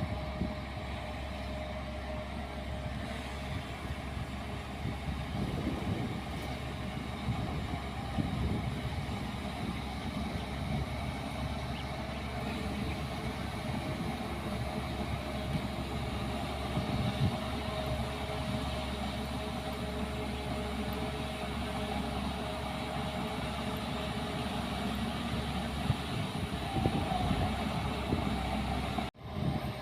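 Diesel engine of heavy earthmoving machinery running steadily, a continuous low rumble with a faint steady whine.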